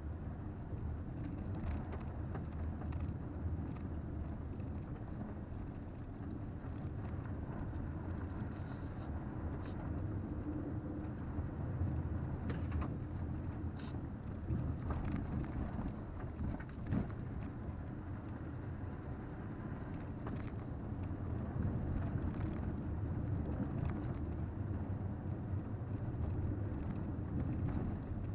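Cabin noise of a 2020 Toyota RAV4 XLE driving slowly on a dirt and sand trail: a steady low rumble of engine and tyres, with scattered knocks and rattles as it rides over the rough track.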